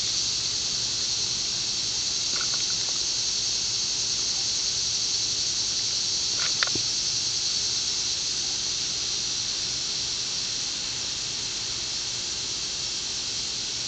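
Propane hissing steadily out of a bullet hole in a mini propane cylinder, a high even hiss of escaping gas that feeds a small flame at the leak. It eases slightly toward the end, with one faint click about six and a half seconds in.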